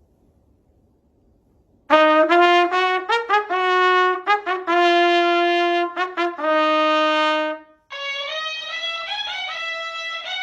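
Near silence, then about two seconds in a trumpet-like brass tune starts, a run of short notes and then long held ones. Near the end it stops briefly and a different, higher-pitched tune takes over.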